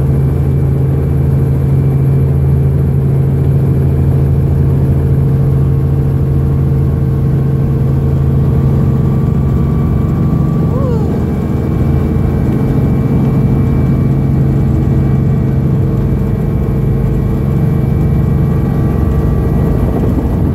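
Small helicopter's engine and rotor running steadily, heard from inside the cabin: a loud, unbroken drone with a strong low hum.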